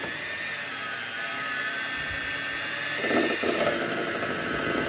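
Electric hand mixer running steadily with a constant motor whine, its beaters creaming butter in a stainless steel bowl.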